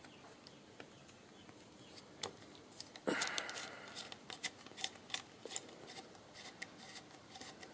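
Hand tools clicking and rattling as a Torx bit is found, fitted and turned on a screw, with a short scraping rustle about three seconds in followed by a run of irregular small clicks.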